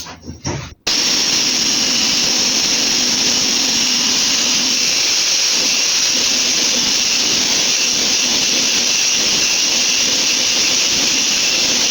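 Electric mixer whirring steadily as it beats eggs and sugar toward a creamy mixture. It starts abruptly about a second in and runs at one unchanging speed.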